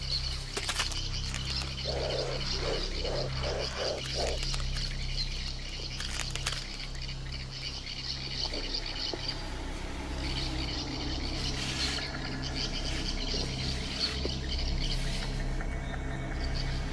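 Wildlife ambience: a steady chorus of calling animals, with a run of about six short lower calls a couple of seconds in, and a few sharp clicks.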